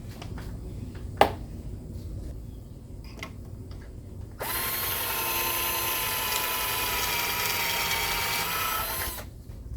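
A sharp click, then a power drill boring a pocket hole through a Kreg pocket-hole jig into a 3/4-inch board. The drill spins up and runs steadily for about five seconds, then stops.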